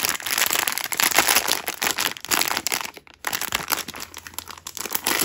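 Plastic packaging crinkling and rustling as a blind-box figure set is unwrapped by hand. It is dense for about three seconds, then breaks into scattered crackles.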